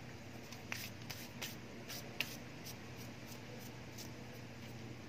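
Faint light taps, clicks and scuffs of a hand handling a carbon-fibre-skinned plastic motorcycle fender on cardboard, a dozen or so irregular ticks over a few seconds, over a low steady hum.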